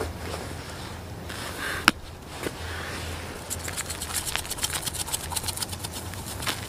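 A sharp click about two seconds in, then a hand-held spice shaker shaken hard over a raw steak: a fast, dense rattle of seasoning granules shaking out onto the meat and paper, stopping near the end.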